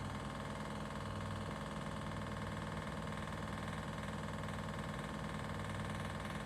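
Arçelik 9123n washing machine spinning, a steady mechanical hum with a fast, even rattle: the noise and rattling during spin that is its fault.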